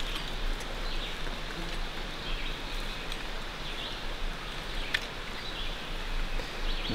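Outdoor woodland ambience: a steady hiss with faint bird chirps, and one sharp click about five seconds in.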